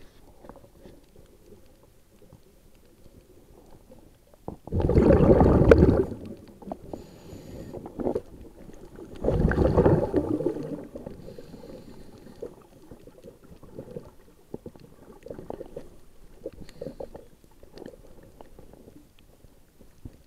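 Scuba regulator exhalations heard underwater: two loud rushes of bubbles about five and nine seconds in, with faint clicking and crackling in between.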